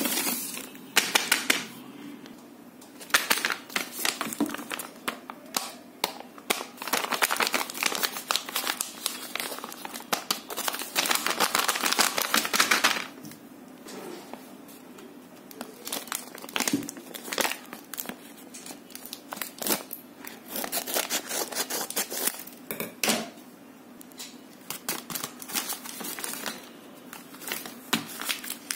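Paper crinkling and rustling as a homemade paper blind bag is handled and opened, in busy stretches of a few seconds with quieter pauses between.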